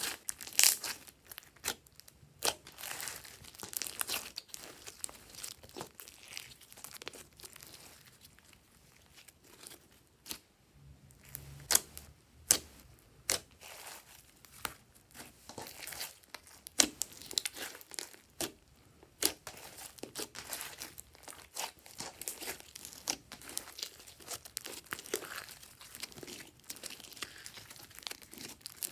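Hands squishing, poking and folding glossy slime, giving irregular sticky clicks and pops, with a quieter stretch about a third of the way in.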